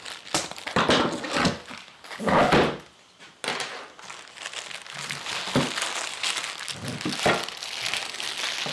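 Plastic wrapping and packing tape crinkling and tearing as they are pulled off metal stand legs, with a few knocks of the parts on a wooden bench.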